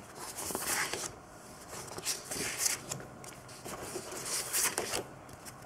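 Sheets of patterned craft paper rustling and sliding against each other as they are leafed through by hand, in several short irregular rustles.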